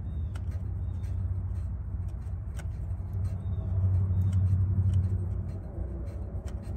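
Steady low rumble that swells for about two seconds near the middle, with scattered light clicks of hands working metal parts at a tow truck's hydraulic pump mounting.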